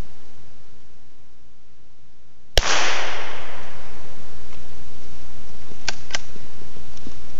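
A single shot from a Marlin .22 LR rifle: one sharp crack about two and a half seconds in, followed by a hiss that fades over about a second. Two light clicks come about three seconds later.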